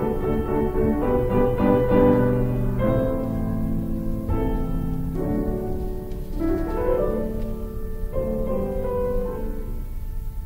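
Intro music led by piano: a melody of sustained notes changing about every second over a low held bass.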